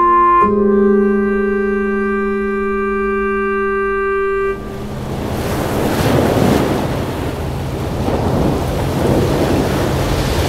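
Held organ-like chords of film score, which break off about four and a half seconds in. A dense rumbling, rushing noise follows, a storm-and-sea sound effect that swells and ebbs.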